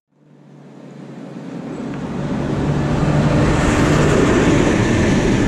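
Vehicle engine running steadily with road and wind noise. It fades in over the first few seconds and then holds loud.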